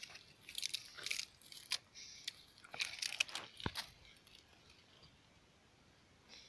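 Dry cotton plants and fallen leaves rustling and crackling as they are handled, a scatter of small crunches in the first few seconds that then fades to faint.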